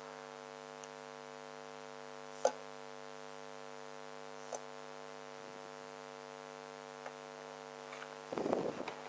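Steady electrical hum with a few light clicks, the clearest about two and a half seconds in, and a brief rough rustling noise near the end.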